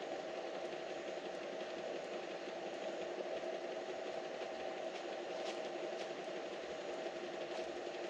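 A small motor running steadily with an even hum, with a few faint ticks over it near the end.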